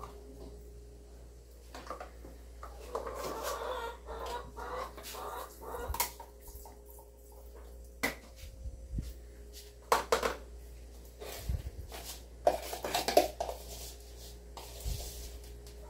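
Scattered clinks and knocks of pots, bowls and spoons as meat is seasoned, a few sharp clatters at a time, loudest about ten seconds in and again near the end, with chickens clucking now and then.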